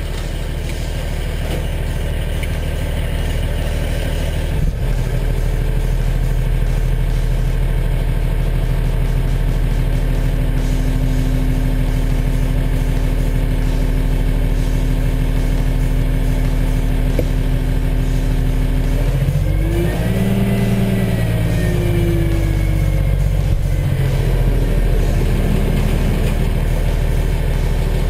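Kenworth T300 dump truck's diesel engine running steadily while driving the hydraulic hoist that raises the dump body. The engine steps up about five seconds in, and its pitch rises and falls again around twenty seconds in as the body tips.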